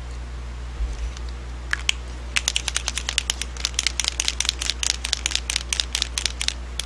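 A Posca paint marker being shaken, its mixing ball rattling inside the barrel in a fast run of sharp clicks, about six a second, starting a couple of seconds in. This is the shake that mixes the paint before the marker is used.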